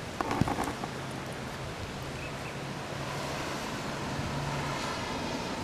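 Wind noise and outdoor ambience, with a faint low steady hum through the middle and a few knocks in the first second.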